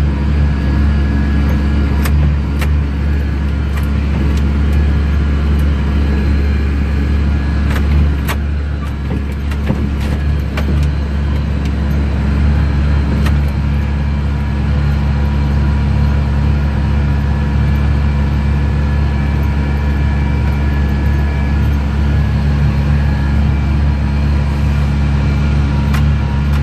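Tractor engine running steadily under load while pulling a baler through straw windrows, with a few scattered sharp clicks and knocks.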